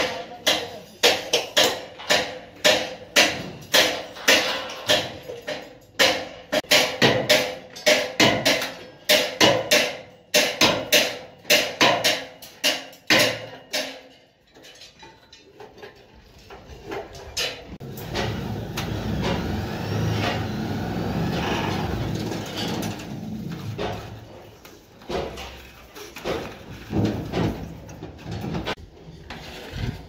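Hammer blows ringing on steel, about two a second for the first fourteen seconds or so. Then a steady low rumble for several seconds, and a few more scattered knocks near the end.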